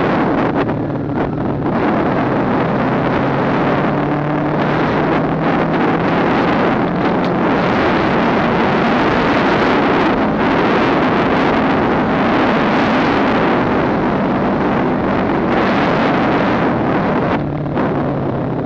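Wind buffeting the microphone of a riding motorcycle's camera, loud and steady, with the engine's low, steady hum underneath; the wind eases briefly a few times.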